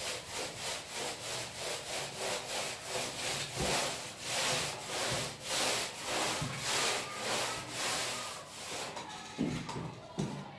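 Paintbrush scrubbing masonry paint onto a concrete wall in quick back-and-forth strokes, about two a second, which stop about nine seconds in; a few low knocks follow.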